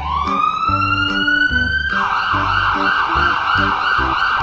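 A siren winding up over about two seconds, then warbling quickly up and down, over background music.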